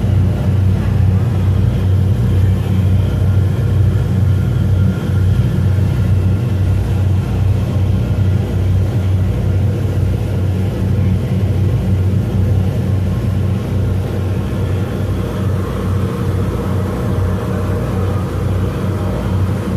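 A ferry's engines droning steadily, a constant low hum under the noise of the boat under way.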